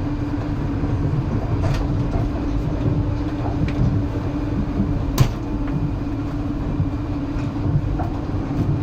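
Train running on rails: a steady low rumble of the wheels under a constant hum, with a few sharp knocks from the track, the loudest about five seconds in.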